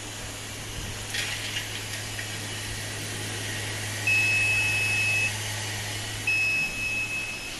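Automatic rivet feeder's vibratory bowl running with a steady low hum, with a brief clatter of loose blind rivets about a second in. Two long, high electronic beeps from the machine's buzzer come about four and six seconds in. The hum stops shortly before the second beep ends.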